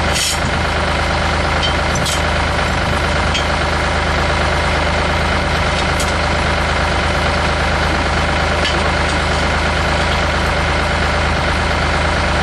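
Farm tractor engine idling steadily, with a few brief light clanks.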